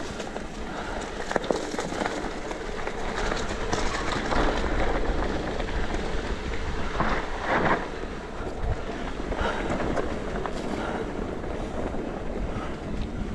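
Mountain bike rolling fast down dirt singletrack: tyres crunching and the bike's chain and frame rattling over the bumps, with wind rumbling on the microphone. A louder surge of noise comes about seven seconds in.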